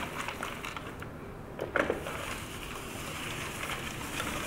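Manual spinning broom pushed along a tile floor, its brushes turning with a steady whirring hiss, with a few sharp clicks about two seconds in as dry dog food bits and Cheeto pieces are swept up.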